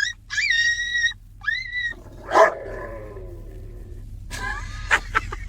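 Puppy whining in high-pitched cries, then one sharp bark about two and a half seconds in, and a run of quick short yaps near the end.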